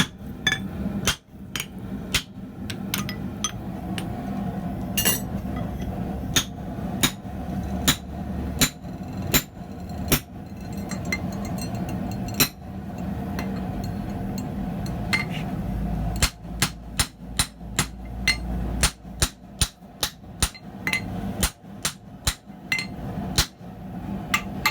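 Hand hammer striking a hot medium-carbon steel block on an anvil, one or two blows a second at an uneven pace, with a steady low drone underneath.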